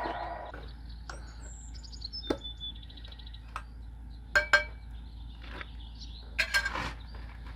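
Birds chirping, with a few sharp clinks and knocks of something being handled: one about two seconds in, a quick pair past the middle and a short cluster near the end.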